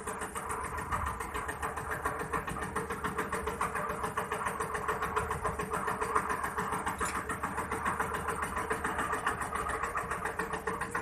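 A small boat's engine running steadily at an even speed, with a fast regular pulse.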